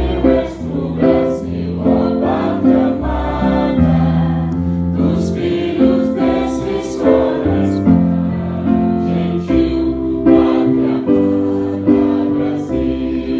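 An orchestra playing a slow piece with a choir singing over sustained chords.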